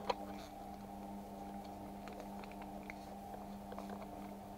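Steady motor hum from a washing machine running, with a sharp clink right at the start and a few faint clicks of a fork in a bowl of cream and egg.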